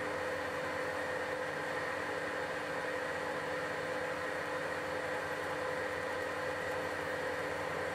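Metal lathe running steadily while a boring bar cuts the inside of a spinning aluminium bore. The sound is an even machine hum with a few held tones under a constant cutting hiss.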